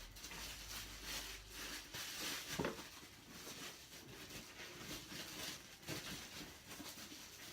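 Hands handling a camera lens and its packaging: faint, irregular rustling and soft clicks, with one louder knock about two and a half seconds in.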